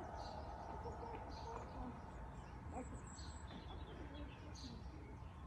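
Birds chirping faintly in the background, short calls every second or so, over a steady low rumble.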